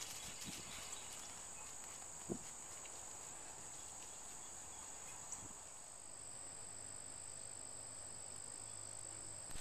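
Quiet outdoor ambience with a faint, steady high-pitched drone and a single soft knock about two seconds in.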